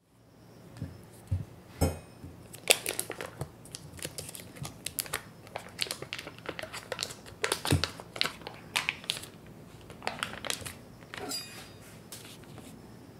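Foil-lined paper wrapper being unfolded and peeled off a block of butter by hand: dense crinkling and rustling, with a few soft knocks, dying away near the end.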